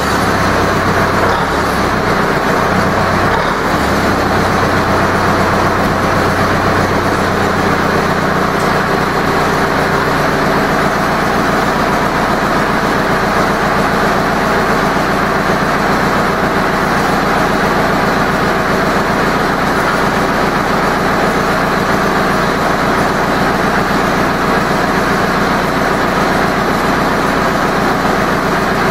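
Zetor 7245 tractor's four-cylinder diesel engine idling steadily and loudly.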